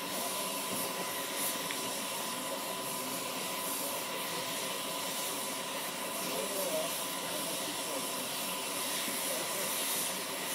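Steady hiss of steam venting from the standing BFD 9, a 1914 SLM Winterthur HG 3/4 Abt-rack steam locomotive.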